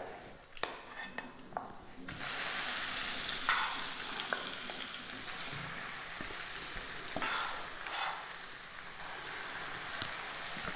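Boiled white peas tipped into hot spiced oil in a kadhai, sizzling steadily from about two seconds in. A silicone spoon scrapes and stirs them through the oil, louder twice.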